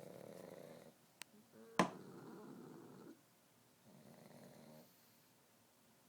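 Sleeping pugs snoring: three snores, each about a second long. There is a faint sharp click just over a second in and a louder one about two seconds in, the loudest sound here.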